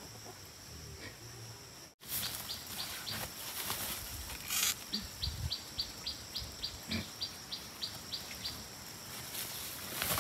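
Pigs grunting and shuffling about two seconds in, after a quiet start. Over them a bird repeats a rapid run of short, high chirps, about five a second.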